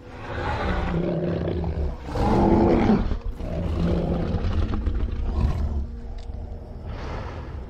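Deep, rough growls from Kong, the film's giant ape, in several long stretches, the loudest about two seconds in, with a fainter one near the end.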